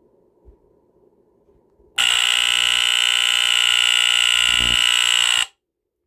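Edwards mechanical vibratory horn in a 1979 Gentex GX-100-1A photoelectric smoke detector, set off by its test knob. It gives a steady electromechanical buzz that starts suddenly about two seconds in and cuts off abruptly about three and a half seconds later.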